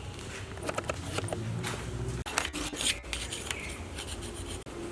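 Hand filing on metal, most likely a piston ring being filed to open its end gap: irregular scraping strokes with scattered light metallic clicks and taps.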